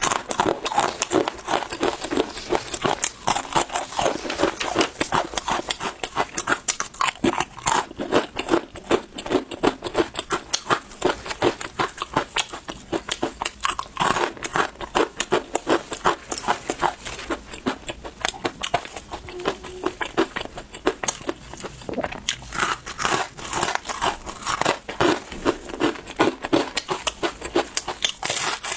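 Dried vegetable chips crunching and crackling, close up, as they are bitten and chewed, with crisp bites in quick succession.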